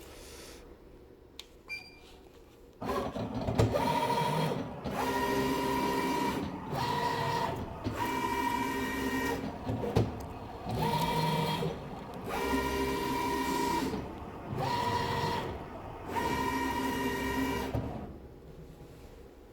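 Graphtec FCX2000 flatbed cutting plotter running, its head motors whining through a series of moves, each a second or two long with short pauses between. The motor sound starts about three seconds in and stops near the end.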